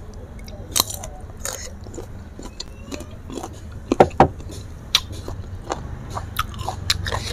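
Close-miked chewing of crisp raw green mango: irregular wet crunches and mouth clicks, with two louder crunches close together about four seconds in.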